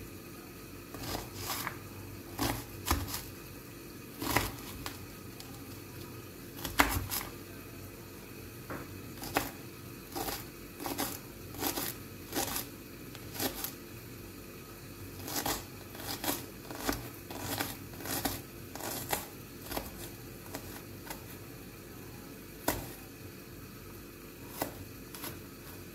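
Small kitchen knife finely dicing a shallot on a cutting board: sharp, irregular knife taps on the board, one or two a second, some in quick runs.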